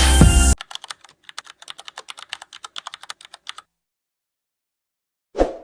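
Background music cuts off suddenly about half a second in, followed by about three seconds of rapid light clicks, roughly eight a second, then a single short thump near the end.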